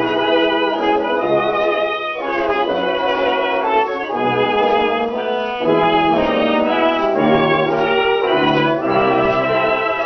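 A dance orchestra playing a waltz from a 78 rpm shellac record, with sustained chords changing every second or so.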